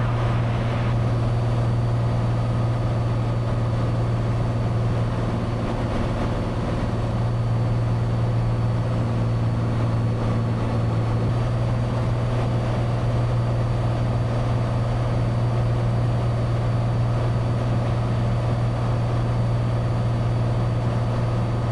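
Cessna 182's engine and propeller droning steadily in cruise, heard inside the cabin as an even, low hum.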